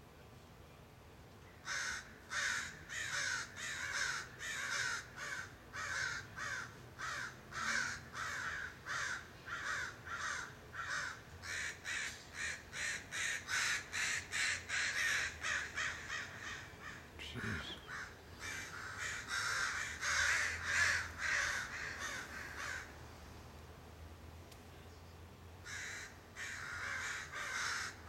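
American crows cawing without let-up, harsh caws following one another about two or three a second. They start about two seconds in, run for some twenty seconds, pause for a couple of seconds, then start again near the end.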